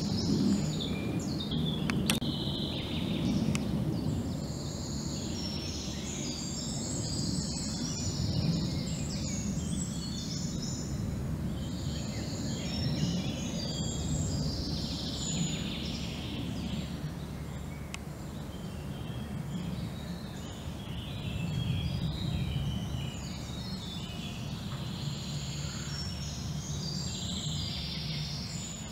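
Songbirds singing and chirping in short phrases throughout, over a steady low rumble.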